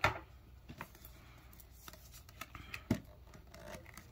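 Hands handling and opening a product box: light rustling with a few sharp taps and clicks, the loudest about three seconds in.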